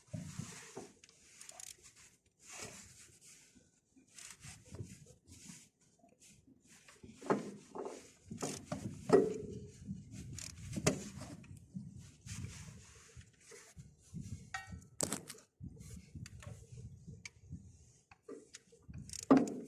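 Scattered knocks, clicks and short scrapes from work on metal parts, with louder knocks about a third and halfway in and again near the end.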